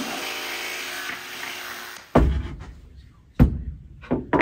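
Festool Carvex jigsaw and its dust extractor finishing a cut in plywood, the motor winding down over the first two seconds. Then, about two seconds in, a sudden loud thump, followed by a few more knocks and thumps.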